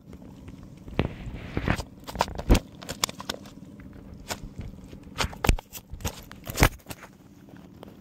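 Footsteps crunching on dry, pebbly ground close to the microphone: about eight sharp, irregular clicks and crunches over a low steady hum.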